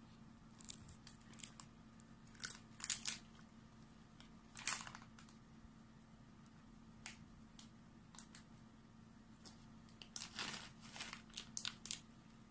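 Short crinkling rustles of a plastic cat-treat stick pouch being handled and squeezed, coming in clusters and most dense near the end, with a cat licking at the treat between them.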